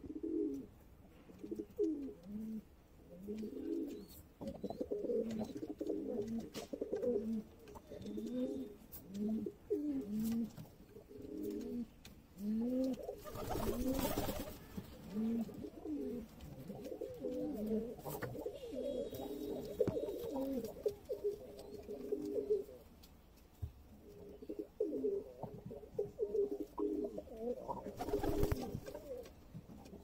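Domestic pigeons cooing over and over, low rolling coos following one another with hardly a break. Two brief rushes of noise cut through, about halfway and near the end.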